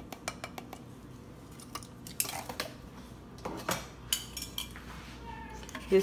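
Small clicks and taps of a plastic measuring spoon scooping in a can of baking powder and knocking against a glass mixing bowl, with a couple of short scrapes.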